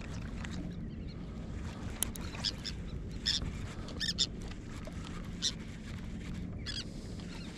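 Seabirds calling in short, high cries, several times at irregular intervals, over a steady low rumble of wind and water.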